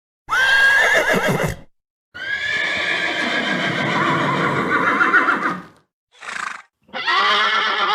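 A horse neighing: a short whinny that starts high and falls away, then a long whinny lasting over three seconds, a brief short call, and another whinny starting near the end, with short silent gaps in between.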